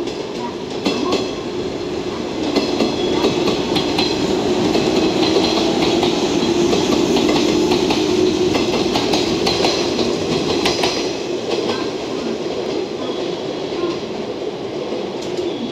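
JNR 113-series electric train rolling slowly past, its wheels clicking over rail joints and points. Its running sound swells through the middle and then eases as it pulls away, with a faint high wheel squeal through the middle.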